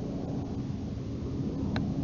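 Wind buffeting the microphone: a steady low rumble, with a short click near the end.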